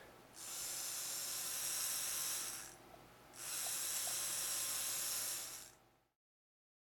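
Small DC hobby motor running with a high, hissing whir for about two seconds, stopping for under a second, then running again for about two seconds. It is being switched on and off through a transistor by an Arduino pin programmed for two seconds on and one off. The sound cuts off abruptly near the end.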